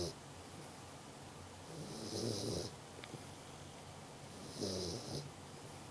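A two-month-old Dogue de Bordeaux puppy snoring, two snores in a slow, even rhythm about two and a half seconds apart, each a low rattle with a hiss of breath.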